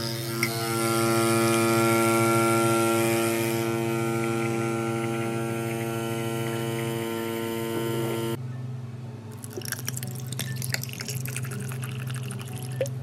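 Capsule coffee machine's pump humming steadily while it brews coffee, then stopping abruptly about eight seconds in. After that, liquid is poured over ice in a glass, with crackling and clinking.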